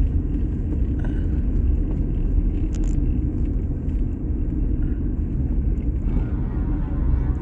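Land Rover Defender driving, a steady low rumble of engine and tyres on the road.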